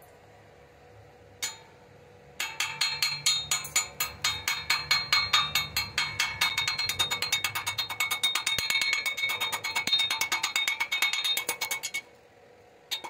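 Chipping hammer tapping rapidly at the slag on a fresh stick weld joining rebar to steel tube, about seven strikes a second, each with a metallic ring from the steel. The tapping starts about two and a half seconds in after one single tap, and stops about a second before the end.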